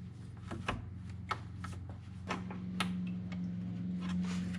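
Scattered light clicks and taps of hands and tools working a plastic hose connection at the bottom of a car radiator, over a steady low hum.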